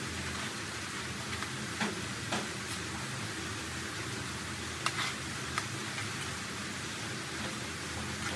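Potato sticks deep-frying in hot oil in a metal wok, a steady sizzle, with a few sharp clicks as metal tongs stir them.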